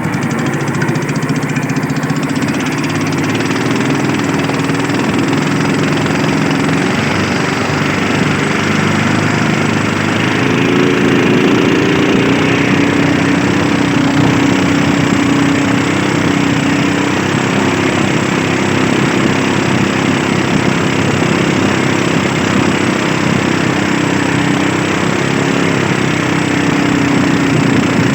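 Small fishing boat's engine running steadily, picking up speed and getting a little louder about ten seconds in.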